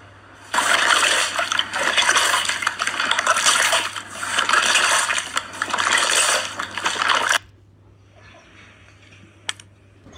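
Wet, crackling squelching of slime being worked by hand, in uneven swells for about seven seconds, then stopping abruptly.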